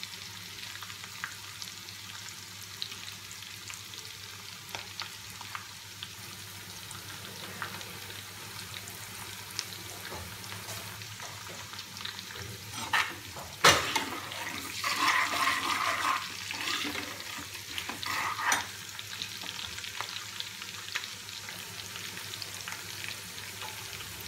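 Long-cut ginger and green chillies frying in ghee, a steady sizzle. About halfway through a sharp knock, then a few seconds of louder stirring in the pan.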